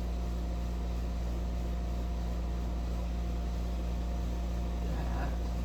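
Air conditioner running with a steady, unchanging low hum.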